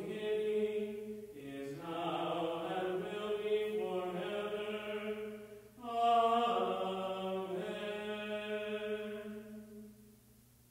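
A pastor's solo voice chanting a liturgical text unaccompanied, in three long held phrases with short breaks between them, ending about ten seconds in.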